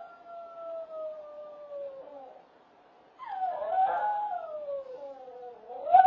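A dog howling: two long howls, the first sliding slowly down in pitch, the second starting about three seconds in, wavering and falling, then rising again near the end.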